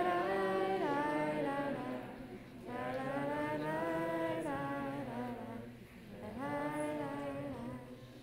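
Singing of a slow prayer melody during the service, with long held notes in three phrases and short breaks between them. It fades near the end.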